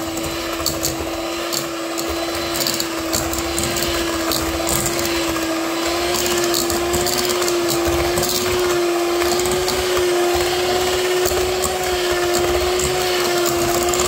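SilverCrest electric hand mixer running at a steady speed, its beaters creaming butter and sugar in a metal bowl: a steady motor hum with scattered light ticks of the beaters against the bowl.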